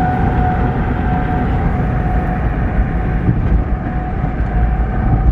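Tornado warning siren holding one steady tone, fading and swelling slightly as it sounds, over the low rumble of a vehicle.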